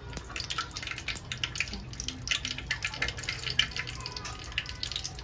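Fenugreek seeds sizzling and crackling in heating oil in a steel pot: a rapid scatter of small pops over a low steady hum, as the oil comes up to heat for tempering.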